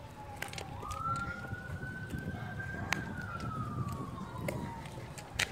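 A siren wailing: one tone rising quickly about a second in, then falling slowly over several seconds, over a low rumble and a few sharp clicks, one louder click near the end.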